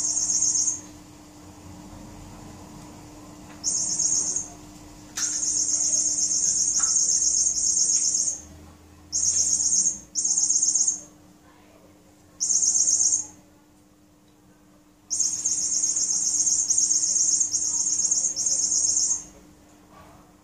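Squeaky cat-teaser wand toy chirping in high-pitched, rapidly pulsing bursts, seven of them, from under a second to about four seconds long.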